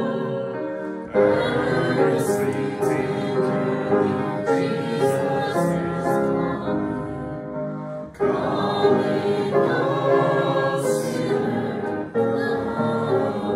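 Church congregation singing a hymn together, in held notes with short breaks between the lines.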